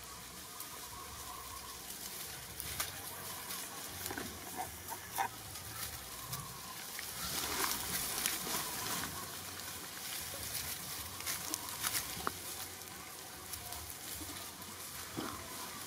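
Dry leaf litter crackling and rustling under monkeys walking over it, with irregular sharp crackles that come thickest about halfway through.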